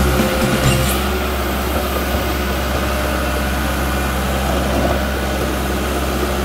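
Caterpillar D1 crawler dozer's diesel engine running steadily under load as the blade pushes a pile of soil forward.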